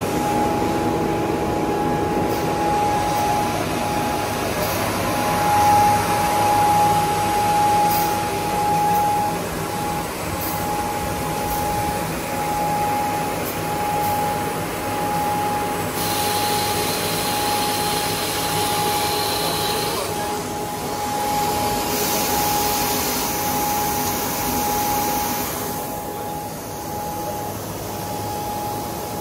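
KÜNDIG Perfect-3 wide-belt sanding machine running with a steady high hum, feeding a wood board through its cross-belt sanding and texturing-brush units. A brighter hiss comes and goes in two stretches in the second half.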